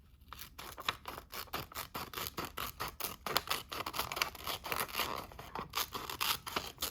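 Small pocket-multitool scissors snipping through paper in a quick run of repeated short cuts, several a second, cutting smoothly.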